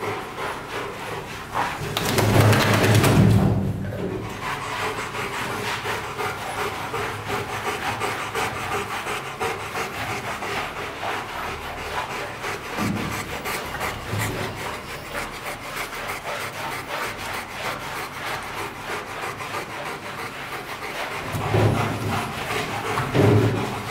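Bristle bath brush scrubbing through the wet, soapy coat of a Rottweiler: a steady, fast rubbing of many quick strokes, with louder spells about two seconds in and near the end.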